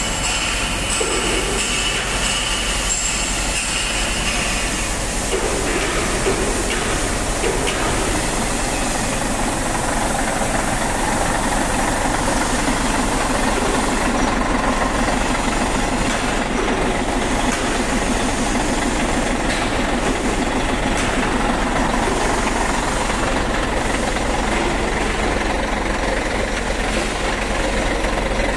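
Old Scania truck's diesel engine running steadily close by, a dense, even mechanical noise, with a thin high hiss over the first few seconds.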